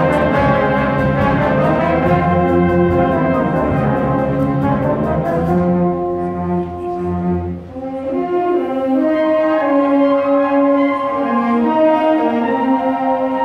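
High school concert band playing: full brass over strong low brass with a steady beat of percussion strikes, which about six seconds in drops away to a quieter, lighter passage of sustained melodic lines.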